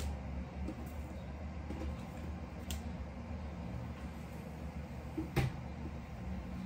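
Quiet room tone: a steady low hum with two brief faint clicks, one a little before the middle and a sharper one about two-thirds of the way through.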